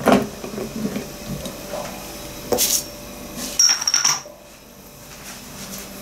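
Knocks and clinks of kitchenware as a metal electric kettle is set back on its base and a ceramic lid goes onto a teapot: a knock at the start, a sharp click about two and a half seconds in, and a short high ringing clink a second later.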